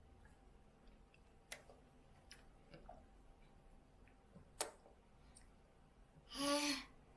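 A few faint, sharp clicks and taps, a spoon knocking and scraping in a baby-food bowl while porridge is scooped, the loudest about a second and a half in and again past the middle. Near the end comes a short voiced "ah".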